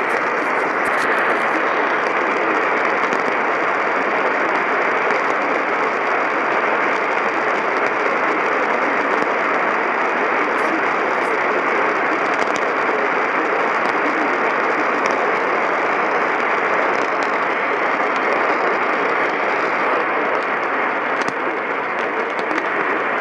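Steady radio static: a dull, even hiss from a radio receiver with no signal or speech on it.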